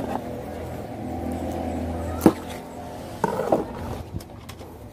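Thin tie wire handled with pliers: one sharp snip-like click about two seconds in, then a few lighter clinks and rustles. A steady engine hum runs underneath and fades out around the middle.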